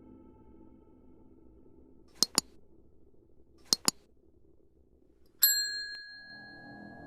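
Two quick double clicks, a second and a half apart, followed by a single bright bell ding that rings out for about two seconds.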